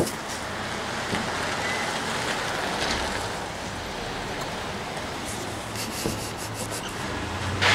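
Street traffic noise: an SUV drives past close by, a steady rush of tyre and road noise.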